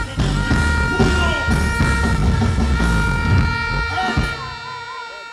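Live band music played loud over a concert PA, with a heavy bass end. The bass drops out about four and a half seconds in and the music fades.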